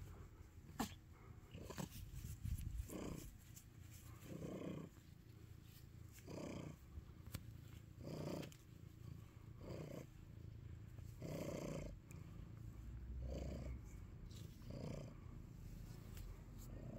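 Calico cat purring, the purr swelling in even pulses with each breath, about one every second and a half. A few faint sharp clicks come in the first two seconds.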